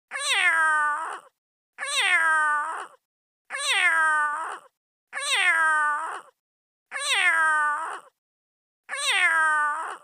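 Domestic cat meowing six times, one drawn-out meow about every 1.7 seconds, each rising briefly and then falling in pitch. The calls are identical in shape: a single meow repeated.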